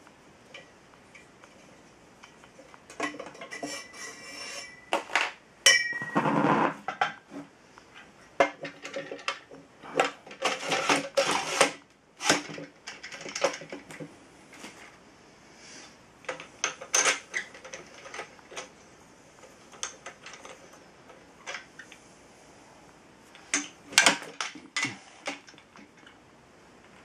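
Metal drill press parts clanking and scraping together as the table bracket and rack are slid onto the steel column and fitted, with scattered clicks and knocks. The loudest clatter comes about six, eleven and twenty-four seconds in.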